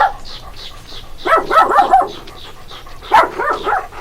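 A dog barking in two quick bursts of several barks each, one about a second in and another near the end.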